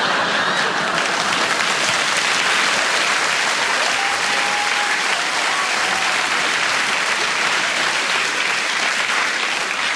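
Theatre audience applauding at length after a punchline, a dense steady clapping that eases off near the end.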